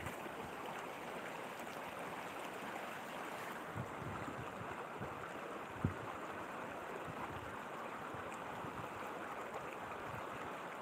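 Steady rushing of a shallow river flowing over stones, with a couple of low bumps on the microphone about four and six seconds in.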